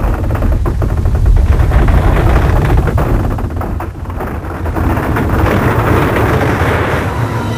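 Crumbling-stone sound effect: a deep, continuous rumble with many dense crackles, dipping about four seconds in and then swelling again.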